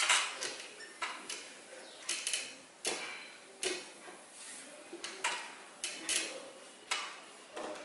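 Whiteboard eraser wiped back and forth across a whiteboard: a string of brisk swishing strokes, about one or two a second, as the board is cleared.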